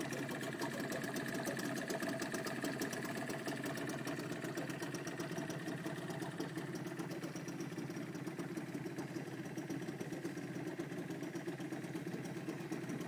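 Small outboard motor on a dinghy running steadily, with a fast, even pulsing.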